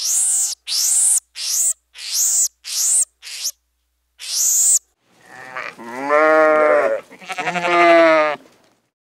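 Animal calls: a string of seven short, very high squeaky calls, then two long, wavering bleats.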